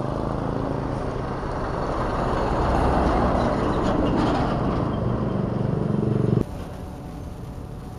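Road traffic passing close: a motorcycle, then a container truck going by. The noise builds to its loudest about three to four seconds in and cuts off abruptly about six and a half seconds in, leaving a much quieter background.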